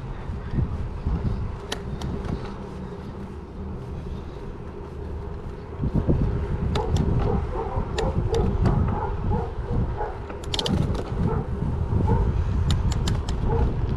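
Riding a bicycle on asphalt: wind noise on the microphone and rolling tyre noise, which grow louder about six seconds in, with scattered sharp clicks and rattles from the bike.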